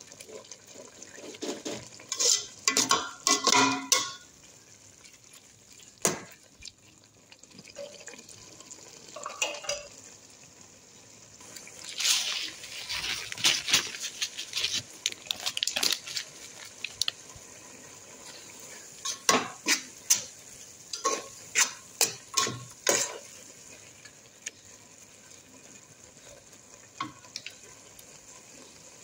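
A flat spatula scraping and knocking against the sides and bottom of an aluminium pot while stirring frying onions, tomatoes and spices. It comes in repeated bursts of rapid clatter over a faint steady sizzle, and grows quieter for the last few seconds.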